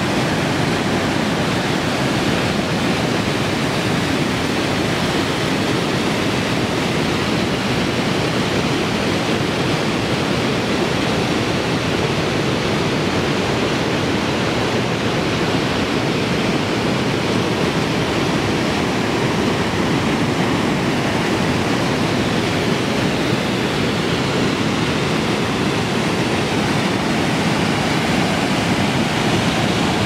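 Waterfall pouring over a rock ledge close by: a loud, steady rush of white water.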